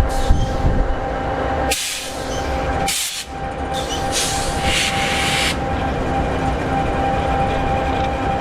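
EMD 16-710G3B sixteen-cylinder two-stroke diesel in an SD60E locomotive idling steadily with a low rumble and a steady hum. Bursts of hissing come through three times in the first half.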